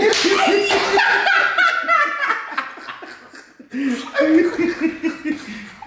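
Several men laughing hard together, several voices at once. The laughter dips briefly about halfway through, then picks up again in a run of short repeated laughs.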